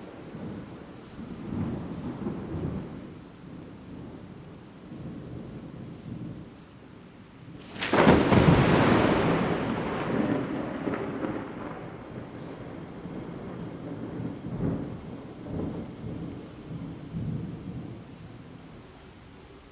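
Thunder rumbling low, then a sharp, close lightning crack about eight seconds in, the loudest moment, which rolls away into long, uneven rumbles that fade near the end.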